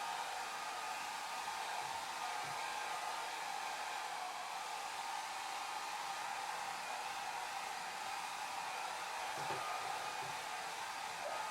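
Hair dryer blowing steadily: an even, unbroken hiss of rushing air with a faint hum in it.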